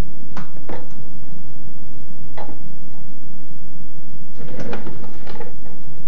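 A few short household knocks and clacks over a low steady hum: two near the start, one about two and a half seconds in, and a busier cluster around four and a half to five and a half seconds, of the sort made by doors, drawers and cupboards being handled.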